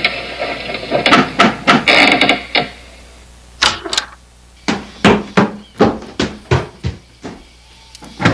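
Repeated knocking on a wooden door, with a quick cluster of knocks followed by a steady run of about three knocks a second.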